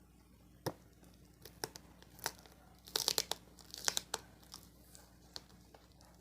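Scotch tape being peeled and ripped off a parcel, with the plastic wrapping crinkling: a string of short rips and crackles, thickest about three to four seconds in.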